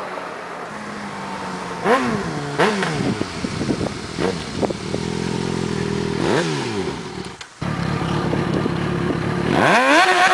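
Yamaha XJ6 motorcycle's inline-four engine at high revs, its pitch sweeping up and down several times with a steadier stretch in the middle. The sound cuts out briefly about three quarters of the way through.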